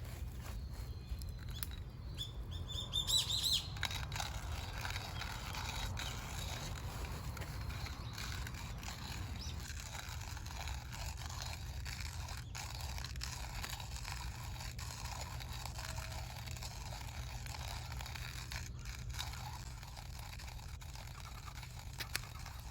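A wild bird calls outdoors with a quick run of rising chirps about three seconds in, then fainter calls. Under the calls are a steady low rumble and scattered faint clicks.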